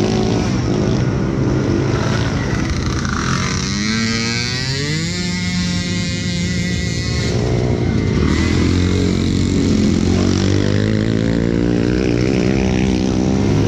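Small ATV engines running. One revs up about four seconds in, holds high for a couple of seconds, then drops back to a lower steady running tone.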